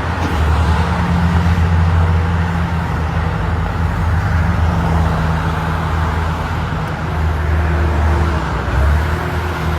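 Diesel engine of heavy construction machinery running steadily, a deep low drone that rises and falls a little with load.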